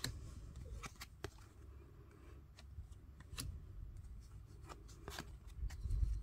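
A stack of Topps Match Attax trading cards flipped through by hand: irregular crisp card snaps and slides as cards are pulled from the front of the pile and slipped to the back.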